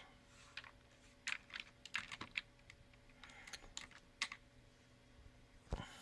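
Faint, irregular keystrokes on a computer keyboard as a word is typed, with one stronger click near the end.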